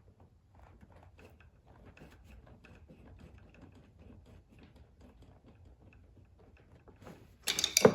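Light, irregular clicking and tapping of hand work on small engine parts, then a loud clatter near the end.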